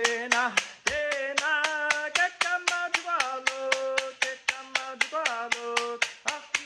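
A man sings a Mi'kmaq Gojwa song in a single voice, holding notes and sliding between them, over a fast, even percussion beat of sharp strikes, about four to five a second.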